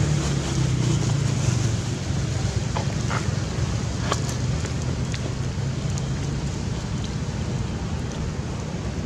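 Steady low hum of a motor vehicle engine running, easing off after about six seconds, with a few faint ticks about three and four seconds in.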